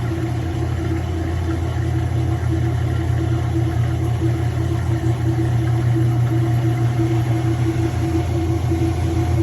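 Kenmore 80 Series direct-drive washer running through its neutral drain, the motor and drain pump giving a steady hum with a fast-pulsing tone over it, growing slightly louder. The transmission is slipping during the drain, the sign of a bad transmission.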